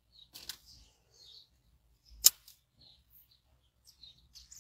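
A single sharp click about two seconds in, among a few faint small clicks and rustles, over quiet car-interior background.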